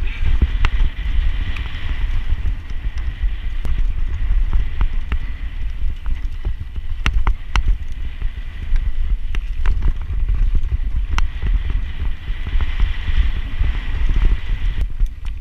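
Mountain bike ridden fast down a loose dirt trail, heard from a camera mounted on the bike: heavy wind buffeting on the microphone and tyre rumble on dirt, broken by frequent sharp clacks and rattles as the bike hits bumps and roots.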